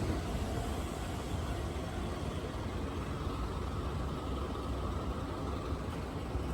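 Steady low vehicle rumble with an even hiss above it, no clatter or bell.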